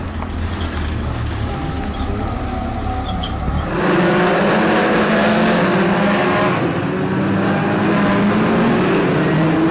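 A BriSCA F2 stock car's engine running low as the car drives off through the pits. From about four seconds in, a louder pack of F2 stock cars is racing, several engines running hard at once.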